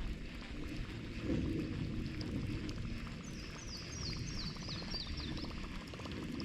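Wind and water noise, with a small bird singing a quick run of about eight short descending notes in the middle.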